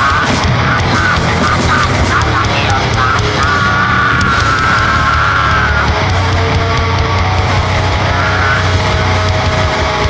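Loud, heavily distorted grindcore/noise music, dense and continuous, with a wavering high tone held through the middle.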